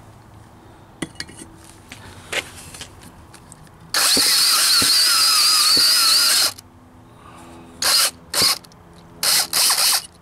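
Drill spinning a step drill bit into a steel square tube to cut a quarter-inch hole from a pilot hole. It makes one continuous cut of about two and a half seconds with a wavering high whine, then several short bursts of the trigger near the end.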